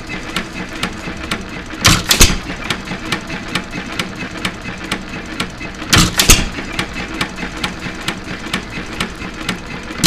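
United 2.5 HP hit-and-miss engine running very slowly: a loud firing burst about every four seconds, near two and six seconds in and again at the end, with light regular clicking at about three a second between firings as it coasts. It runs this slow because one of the springs on the governor weights is off.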